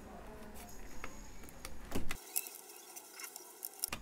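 Light clicks and taps of a plastic pry tool and hands working the edge of a laptop's aluminium bottom cover, with one sharper click about two seconds in.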